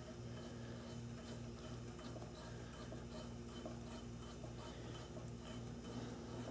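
Faint scattered ticks and rubbing of set screws being tightened into the drill press spindle's step pulley, over a low background hum that pulses about three times a second.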